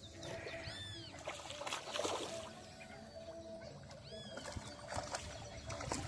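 A bird calls twice, about three and a half seconds apart; each call is a short, high, arched note. Under it runs a faint steady hum with scattered crackly noise.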